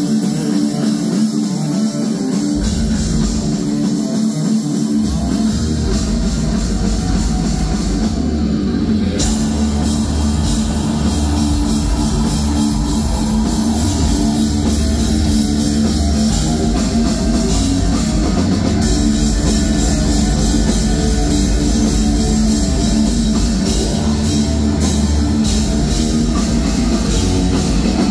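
Heavy metal band playing live at full volume: distorted electric guitar over a drum kit. The deep bass and kick drum drop out briefly near the start, then come in fully about five seconds in.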